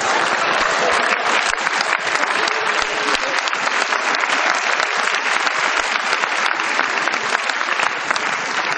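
A large audience applauding steadily, a dense mass of hand claps.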